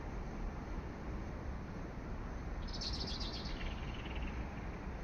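A small bird gives a quick run of high chirps a little past halfway, followed by a few lower chirps, over a steady low outdoor background noise.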